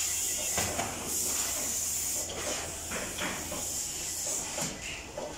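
A steady high-pitched hiss, fading near the end, over a faint low hum, with a few short rustles and knocks.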